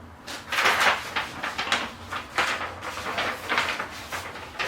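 A paper template being folded and creased by hand, with repeated loud crinkling and rustling strokes of paper.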